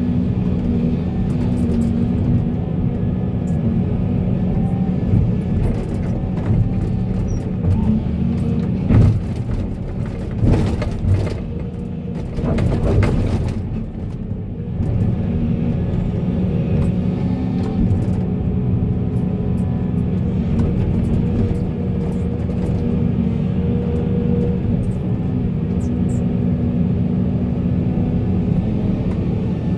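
Volvo excavator's diesel engine running steadily under load, with a stretch of clattering and scraping about a third of the way in as stones and material are dumped into a truck bed.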